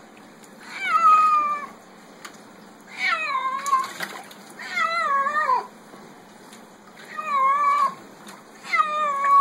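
Domestic cat meowing in protest at being bathed: five drawn-out calls, each about a second long and mostly falling in pitch at the end, a second or two apart, that sound like "no".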